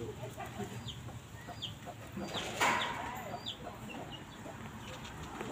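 Bird calls: a run of short, high, falling chirps, with one louder call about two and a half seconds in.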